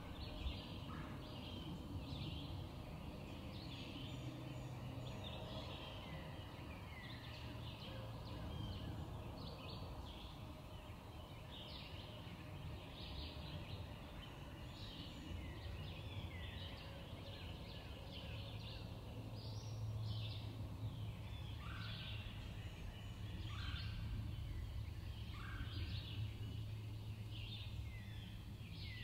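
Woodland birds calling: many short chirps and downward-sliding whistles, over a low steady hum.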